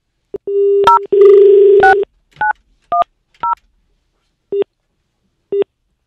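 Telephone line tones as a call is placed: a steady dial tone, then a handful of quick two-note keypad tones as a number is dialled. From about four and a half seconds in, short single beeps come about once a second while the call goes through.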